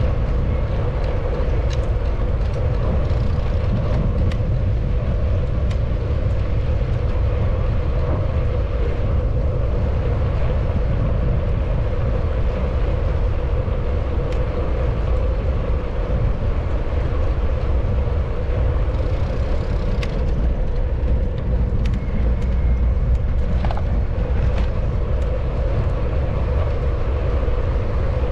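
Engine running steadily: a continuous low rumble with an even hum over it and a few faint clicks.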